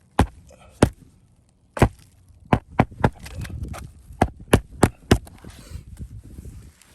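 A series of about ten sharp, irregular knocks, some in quick twos and threes, with faint rustling between them.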